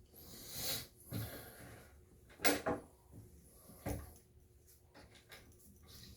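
Faint handling noises: a few short, scattered clicks and knocks as toilet tank bolts and washers are picked up and fitted.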